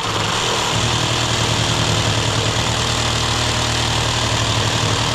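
An engine idling steadily, its low hum filling out and getting louder a little under a second in.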